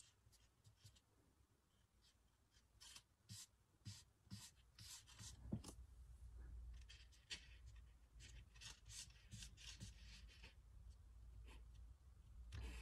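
Faint, scratchy rubbing strokes of fingertips on paper, working paint into a gel print: many short, irregular strokes starting a few seconds in.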